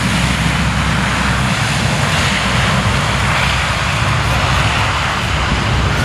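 A Lockheed C-130H Hercules's four Allison T56 turboprop engines run as it rolls down the runway. It is a loud, steady propeller drone with a deep hum beneath, and the rushing part swells a little in the middle.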